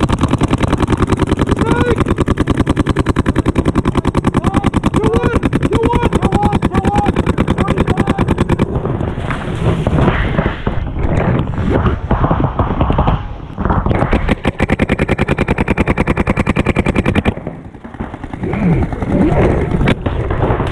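Paintball markers firing a rapid, steady stream of shots for the first nine seconds or so. After that the firing breaks into shorter bursts, and it mostly stops near the end.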